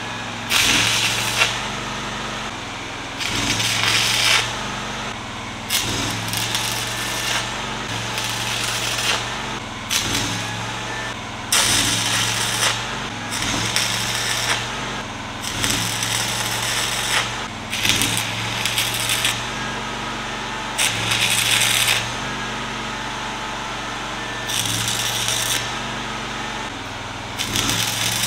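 Stick welding with 3/32 E6010 rod: a series of short arc strikes, about a dozen, each crackling for roughly half a second to two seconds as a tack weld is laid. A Miller Trailblazer engine-driven welder runs steadily underneath.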